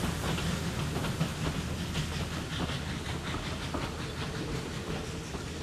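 Passenger carriages of a steam train rolling past, their wheels clicking over the rail joints, with steam hiss from the double-headed steam locomotives working ahead; the sound slowly fades as the train goes by.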